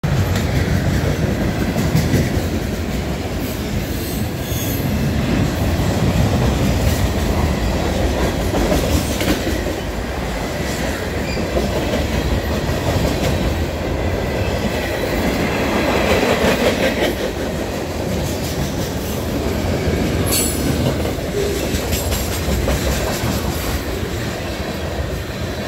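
Freight train of boxcars and tank cars passing very fast and close. A steady, heavy rumble of wheels on rail with continual clattering over the rail joints.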